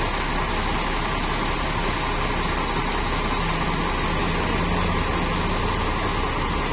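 Diesel engine of a Zoomlion QAY200 mobile crane running steadily as the crane drives slowly up onto a low loader trailer.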